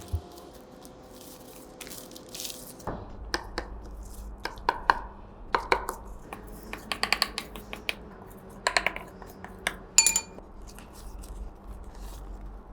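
Kitchen dishes and utensils clinking and knocking in a run of separate light strikes, some ringing briefly.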